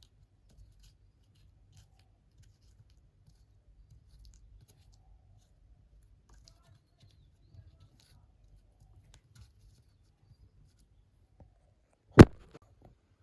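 Quiet crafting handling sounds: faint scattered snips, ticks and scratches of small tools and paper or card being worked by hand, then one sharp loud knock near the end.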